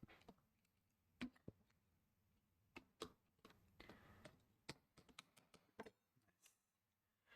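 Faint, irregular clicks and taps from handling the parts of a Nintendo Switch console while its mainboard is being fitted back into the housing.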